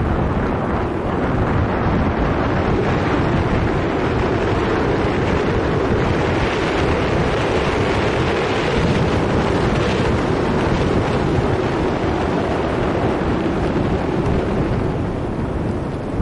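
Steady, loud wind buffeting the microphone of a camera on a moving bicycle.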